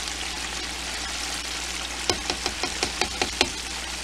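Chicken gizzards deep-frying in hot oil, a steady sizzling hiss over a low hum, with a quick run of about eight sharp metallic taps about two seconds in as the wire skimmer knocks against the fryer.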